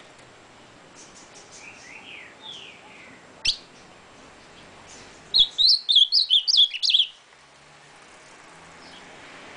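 Caged ultramarine grosbeak (azulão) singing one loud, quick song phrase of about ten notes, lasting under two seconds, from about five seconds in. A few faint, falling notes come earlier, and a single sharp tap sounds around three and a half seconds in.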